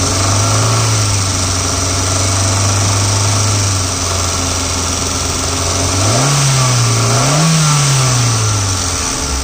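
Hyundai Santro Xing's four-cylinder petrol engine idling steadily, then revved up twice in quick succession about six seconds in, each time falling back, and settling to idle near the end.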